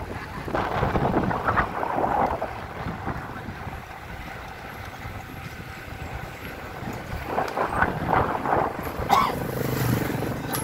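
Wind buffeting the microphone of a phone carried on a moving bicycle: a rumbling rush that swells in gusts about a second in and again near the end.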